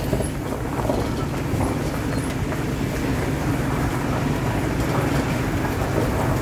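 Steady low rumble of a vehicle's engine and road noise, heard from inside the slowly moving vehicle.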